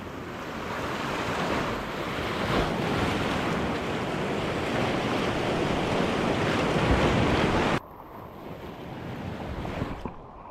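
Sea waves washing and surging around the rocks at the water's edge, with wind buffeting the microphone. About eight seconds in, the sound drops suddenly and turns muffled, and a short click follows near the end.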